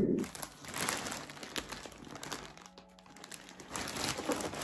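Large plastic poly mailer package crinkling and rustling as it is handled and lifted. The crinkling is strongest in the first second, eases off in the middle, and picks up again near the end.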